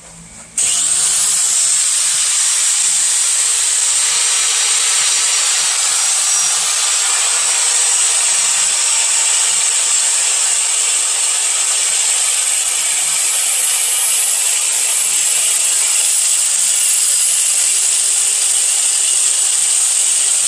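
Small handheld grinder spinning up about half a second in, then grinding steadily into a cast aluminium Ford timing chain cover with a continuous high whine, cutting off the cover's internal chain-slap guide so a gear drive will clear.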